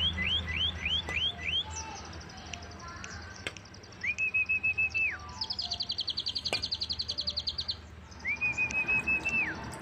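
A songbird singing: a quick run of rising whistles, then a held, warbling note that drops off at the end, a fast high trill, and the warbling note once more, over a faint steady low hum.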